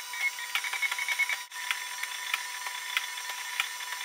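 Dual-extruder MakerBot Replicator 3D printer at work: its stepper motors whine in short, quick high chirps with rapid ticks as the print head moves, over a steady tone. The sound drops out briefly about a second and a half in.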